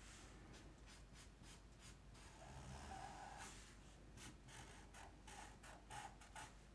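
Faint, repeated short strokes of a black felt-tip marker on paper as outline edges are thickened.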